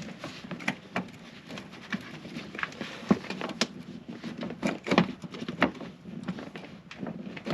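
Molded plastic mud flap and fender liner being pushed and worked into place by hand: irregular clicks, taps and scrapes of plastic on plastic.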